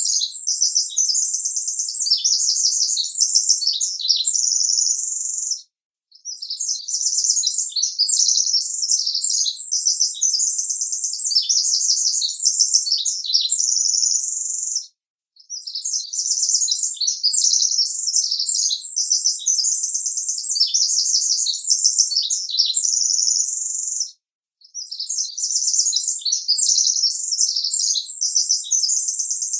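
Songbirds chirping and trilling in quick, high-pitched runs. The sound drops out briefly three times, and the same passage repeats about every nine seconds.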